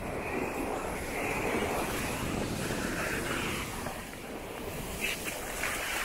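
Ocean surf breaking and washing up the beach, with wind buffeting the microphone. The wash swells loudest in the first half.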